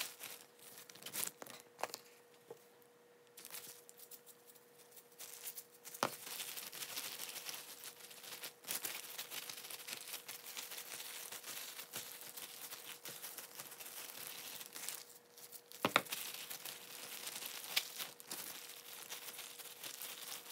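A disposable plastic glove crinkling and rustling as a hand works seasoning into raw chicken pieces, with scattered sharp clicks and knocks. The loudest knock comes about 16 seconds in.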